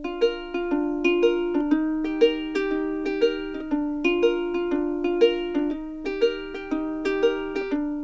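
Background music: a light, plucked-string tune with a bouncy, repeating rhythm of about two notes a second, with a ukulele-like sound.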